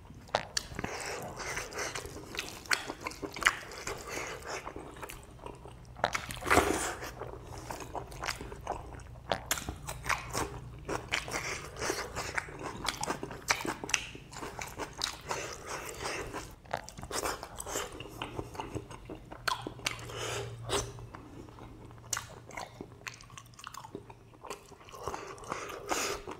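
Close-miked mukbang eating: a person chewing pork and rice with the mouth open, many short wet clicks and smacks of biting and chewing.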